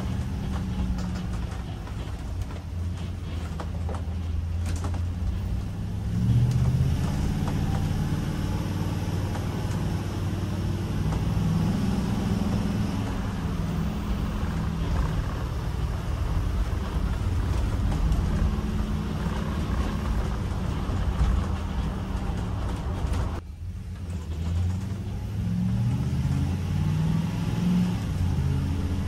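Ford motorhome's V8 engine running inside the cab: a steady low rumble while driving, climbing in pitch as it accelerates about six seconds in and again near the end, with a brief drop just before. Faint clicks and creaks from the coach body come and go.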